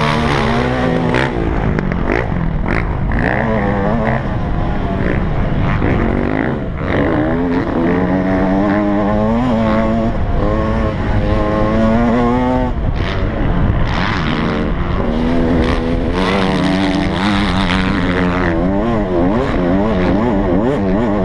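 Yamaha YZ125 two-stroke single-cylinder motocross engine revving hard and rising and falling in pitch again and again as the rider accelerates, shifts and rolls off over the jumps, with a few sharp brief breaks between pulls.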